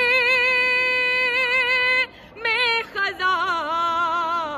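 A woman's solo voice singing an Urdu noha, a mourning lament for Abbas: she holds one long note with vibrato for about two seconds, breaks off briefly, then carries on with ornamented, wavering phrases.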